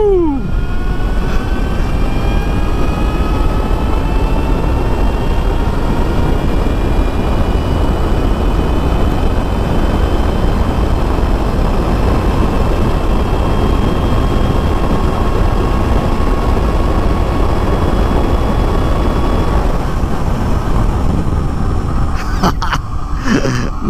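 Heavy wind rush over the microphone of an Ultraviolette F77 electric motorcycle under hard acceleration to well over 100 km/h. The electric drive's faint whine rises slowly in pitch and fades out about 20 seconds in as the rider rolls off. A few knocks come near the end.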